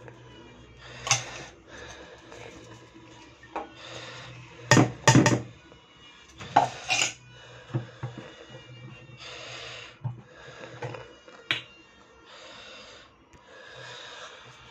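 Kitchen handling sounds as raw chicken strips are seasoned in a glass bowl: rubbing and scraping, with a metal spoon and glass containers clinking and knocking, the sharpest knocks coming in a cluster around the middle.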